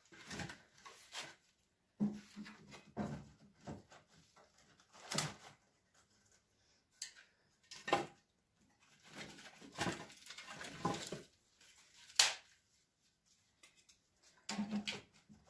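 Split pieces of resinous pine kindling (lighter, or fatwood) knocking and clattering as they are laid by hand into the firebox of a small wood-burning stove, with light rustling in between. The knocks come irregularly with short pauses, a few sharper clicks standing out.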